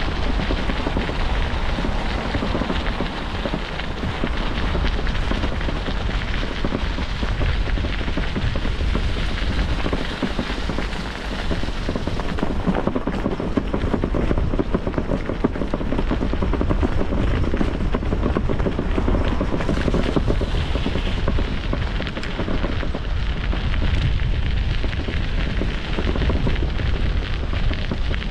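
Steady wind rumble and buffeting on the microphone of a camera carried on a moving bicycle.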